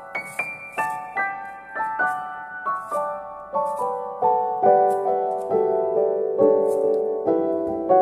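Background piano music: a gentle melody of evenly spaced single notes, about two to three a second, moving into a lower register partway through.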